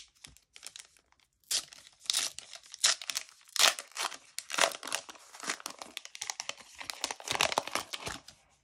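A Panini Euro 2020 trading-card booster packet being torn open and its wrapper crinkled by hand: a dense run of irregular rips and crackles that is fainter for the first second and a half.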